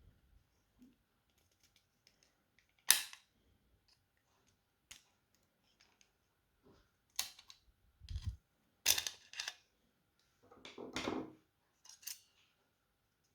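Sharp clicks and snaps of a Logitech M185 mouse's plastic shell and parts being handled and pressed together: one loud snap about three seconds in, then a run of clicks with a dull knock in the second half.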